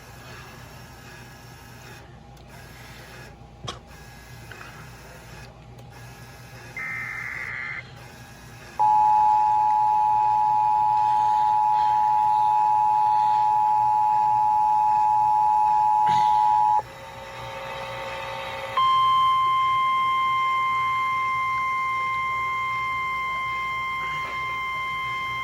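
Emergency Alert System tones for a tornado warning on NOAA Weather Radio: after faint receiver hiss and a short data burst, the two-tone attention signal sounds steadily for about eight seconds. After a brief noisy break, the single 1050-hertz Weather Radio warning tone comes in and holds steady to the end, fading slightly.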